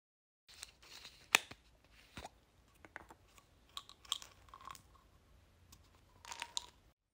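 Hand-handling noises of a small object: a sharp click a little over a second in, then scattered small clicks, crinkles and rustles, with a short cluster near the end.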